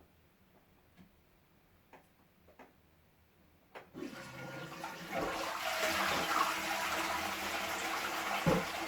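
A few faint clicks, then a sharp click about four seconds in as a kitten works the toilet's flush lever, and the toilet flushes: water rushing loudly into the bowl, with a thump near the end.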